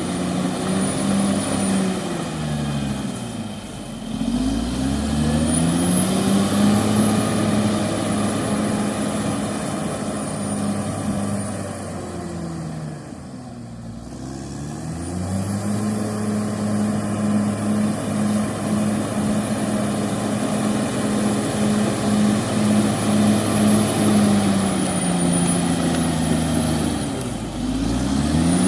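CAT D6R XL bulldozer's diesel engine running under load, its pitch sagging and climbing back three times as the machine works, with a faint high whine that rises and falls along with it.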